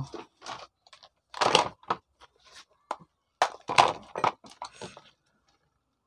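Irregular clicks, knocks and clatter of hand tools being picked up and handled on a wooden workbench, in a cluster of sharp hits about a second and a half in and another between three and a half and four seconds in.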